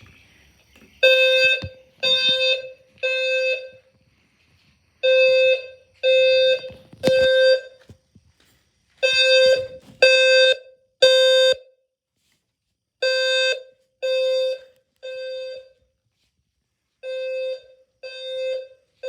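Fire alarm horn sounding during a test, in the temporal-three evacuation pattern: three beeps of about half a second, a second apart, then a pause, repeating every four seconds.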